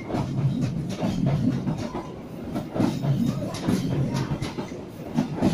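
The KA Bangunkarta passenger train's executive coaches rolling past at close range: a low rumble with a run of sharp wheel clacks over the rails.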